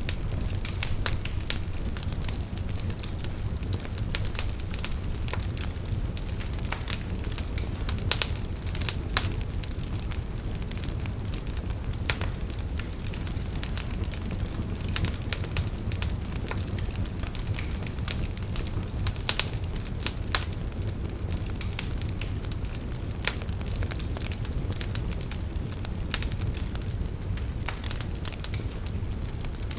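Wood fire burning steadily: irregular sharp crackles and pops of the burning wood over a low steady rumble of the flames.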